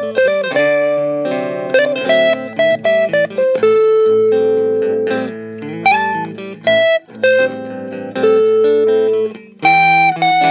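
Fender Stratocaster electric guitar played through a Fender Blues Junior amp: a single-note melody of quick runs and long held notes, with a note bent upward about halfway through.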